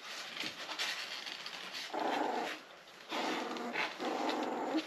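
Young border collie puppies crying in three short bouts: about two seconds in, just after three seconds, and again from about four seconds on.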